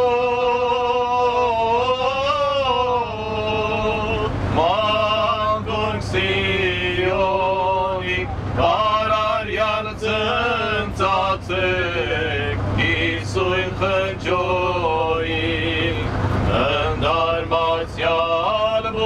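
A man singing into a microphone: a slow melody in long held notes that waver and bend, sung phrase by phrase. Underneath runs the steady low rumble of a moving bus.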